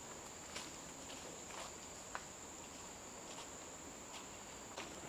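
Forest insects keeping up a steady high-pitched drone, with a few soft footsteps about a second apart.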